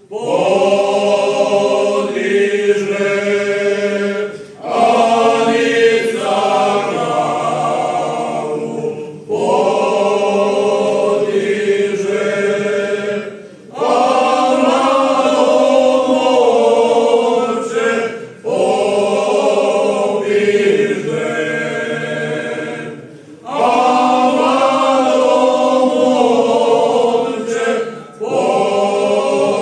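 A traditional men's folk singing group sings unaccompanied in several-part harmony. The song moves in sung phrases of about four to five seconds, each followed by a brief break for breath.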